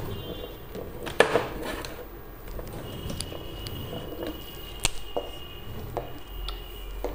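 Desk handling noises as markers and objects are picked up and moved: a sharp knock about a second in, a click near five seconds, and light taps and rustles between.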